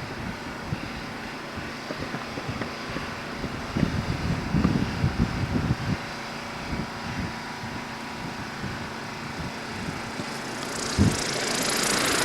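A steady outdoor rumble with a few low thumps, then a propeller aircraft engine growing louder over the last couple of seconds.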